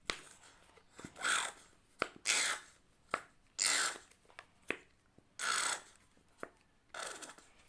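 A nearly empty plastic squeeze bottle of PVA glue being squeezed five times, each squeeze a short hissing spurt of air, with small clicks between; the bottle has run out of glue.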